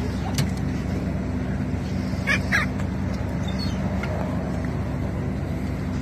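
A steady low engine hum, with two short gull calls in quick succession about two and a half seconds in.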